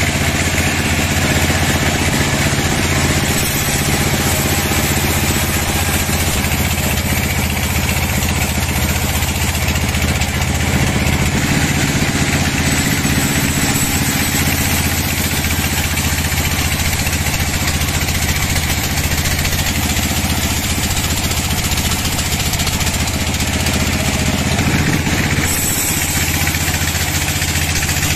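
Band sawmill running steadily, its vertical blade cutting lengthwise through a large hardwood log, with a steady machine hum under the noise of the cut. The sound changes about three seconds before the end.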